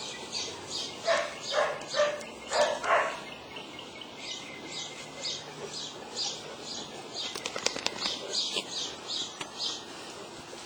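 Fila Brasileiro dogs playing rough: a quick series of about five barks in the first three seconds, then quieter. Under it runs a steady stream of short, high, hissy pulses, two to three a second, with a brief clatter of sharp clicks about seven and a half seconds in.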